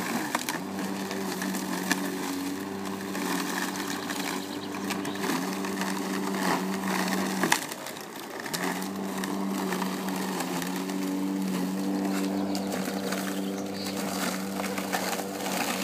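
Corded electric rotary lawn mower running with a steady hum while cutting through long grass. About seven and a half seconds in the motor cuts out for about a second, then runs again.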